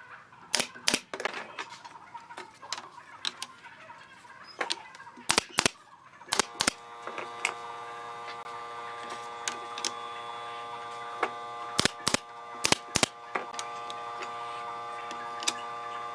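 Sharp clicks and knocks of wood slats and tools being handled as slats are fitted and fixed onto a wooden lounger frame, many coming in quick pairs. About six seconds in, a steady hum starts and holds underneath.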